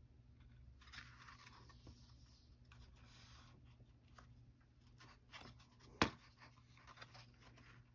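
Faint rustling and scraping of paper being handled, with one sharp click about six seconds in.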